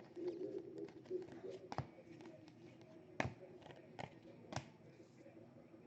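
Faint handling of baseball trading cards being sorted and laid down, with a few light, sharp clicks spread between about two and five seconds in.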